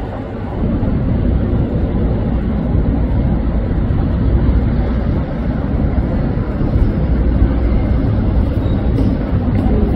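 Loud, steady low rumble with no distinct events.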